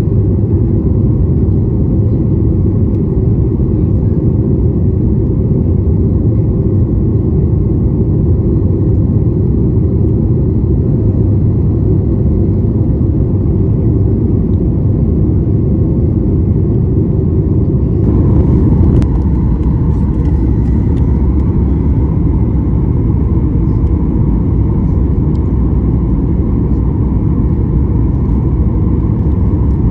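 Steady rumble of a Boeing 737 MAX 8 in flight heard from inside the cabin: engine and airflow noise. About eighteen seconds in, the sound shifts abruptly and a faint higher hum joins the rumble.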